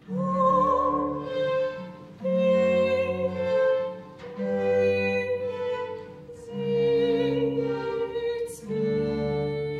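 Soprano voice singing long held notes with vibrato over a small baroque string orchestra of violins and cellos, in phrases about two seconds long with short dips between them.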